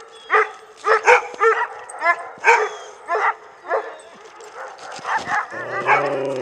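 Husky-type dog barking in short, high-pitched yips, about two a second. Near the end it lets out one longer, lower howl lasting over a second.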